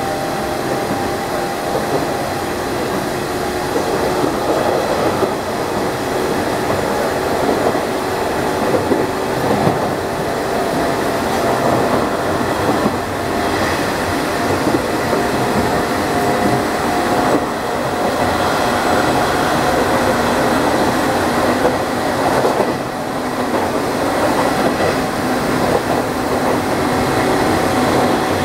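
Nishitetsu 5000 series resistance-controlled electric train running at speed, heard inside the passenger car: a steady motor and gear hum with a few held tones over the noise of the wheels on the rails, with some clickety-clack from the track.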